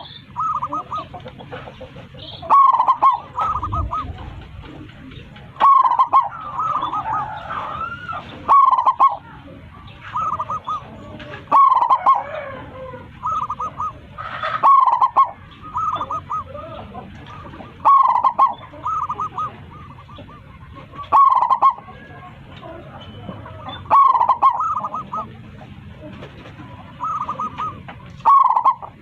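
Zebra dove (perkutut) cooing: a short phrase of several quick notes, repeated about every three seconds.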